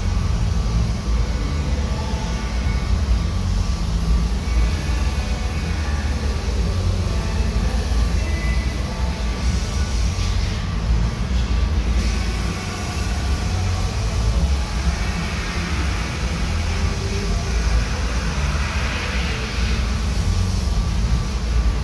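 Paint spray booth's ventilation fans running: a steady low rumble of moving air.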